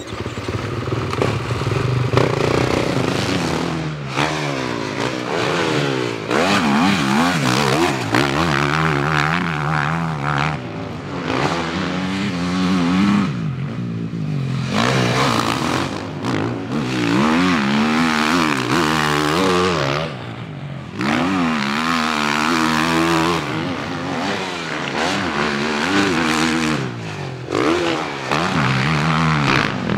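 Husqvarna four-stroke motocross bikes revving and accelerating, the engine note climbing and dropping over and over as the throttle is opened and closed through gear changes, with a couple of brief lulls.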